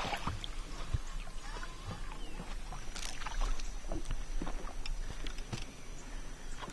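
Handling noise aboard a fishing boat: scattered knocks and clicks, with a splash-like burst about three seconds in. A thin, steady high-pitched tone runs from about three seconds in.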